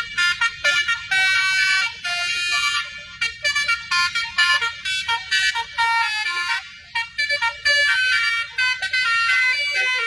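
Multi-tone Basuri V3 'telolet' bus horn playing a fast tune of short, high-pitched notes, with a few longer held notes between them.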